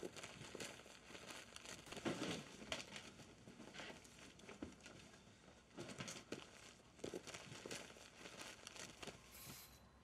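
Hands rummaging through clothes, bedding and papers: irregular rustling and crinkling of fabric and paper with small soft knocks, in a search for a lost pen.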